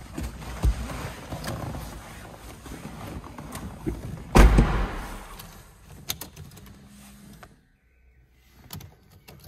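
Someone settling into the driver's seat of a Porsche Boxster: rustling and handling noise with small clicks, and a heavy thump about halfway through. Then a short electric motor whir, and a couple of clicks near the end as the ignition is switched on, just before the engine starts.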